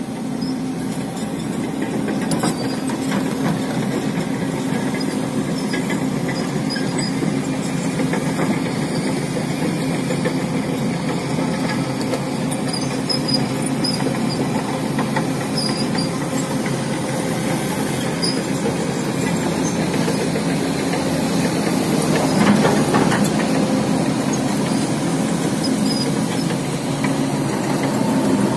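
Heavy-equipment diesel engine running steadily, with a continuous low hum that grows a little louder around twenty-two seconds in.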